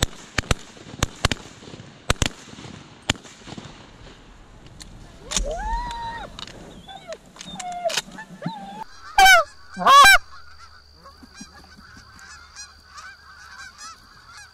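Canada geese honking: one drawn-out honk about five seconds in, two loud close honks about nine and ten seconds in, then a flock's steady chatter of many overlapping honks. A run of sharp clicks comes in the first few seconds.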